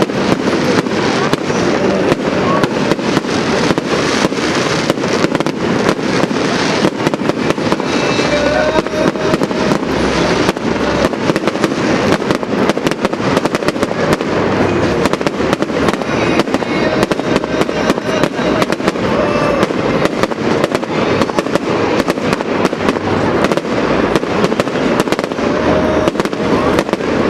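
Fireworks display: a dense, unbroken stream of sharp bangs and crackles, many a second, with no pause.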